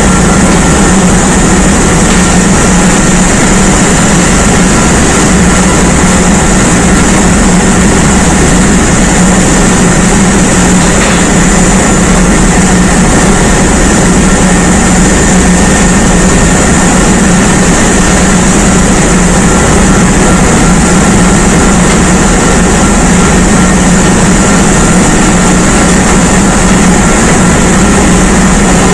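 Ship's engine-room machinery running steadily: a loud, unchanging mechanical din with a strong low hum and a few thin, steady high tones.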